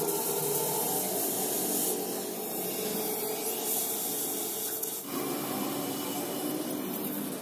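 Steady hiss of compressed-air spraying in a metal workshop, over a steady machine hum. The hiss changes abruptly about two and five seconds in.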